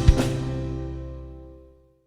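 Background music ending: a drum hit, then a last chord that rings and fades away to silence near the end.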